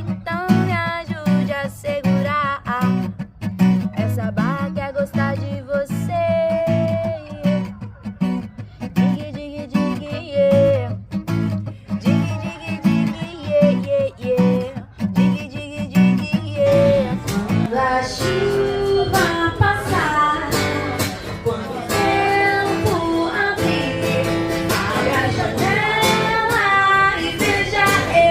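Acoustic guitar strummed under a singing voice. About two-thirds of the way through, the music changes to a fuller, denser passage.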